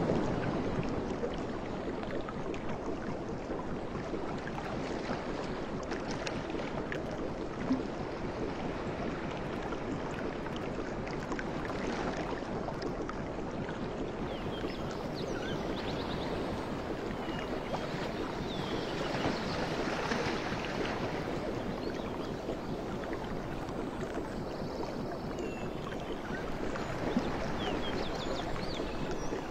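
Steady wash of distant surf with wind on the microphone.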